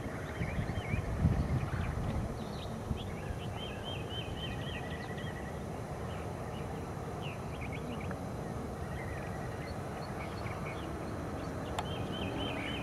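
Songbirds chirping and trilling, with short repeated trills. A low gust of wind rumbles on the microphone about a second in. One sharp click comes near the end.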